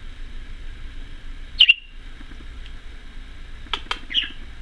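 Budgerigar giving short, high single chirps: one about a second and a half in and another near the end, with a few light clicks just before the second.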